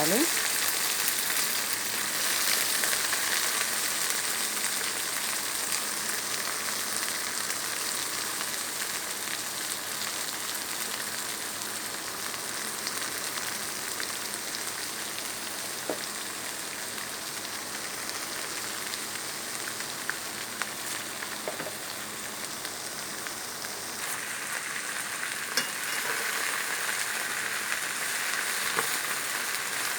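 Chopped fresh coriander leaves sizzling steadily as they fry in hot oil in a pan, with a few faint clicks.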